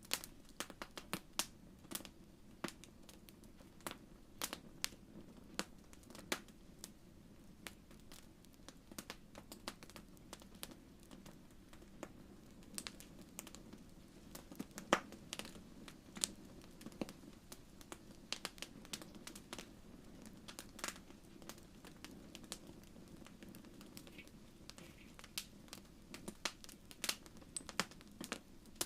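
Wood fire crackling: irregular sharp pops and snaps, several a second, over a soft low hiss of the flames.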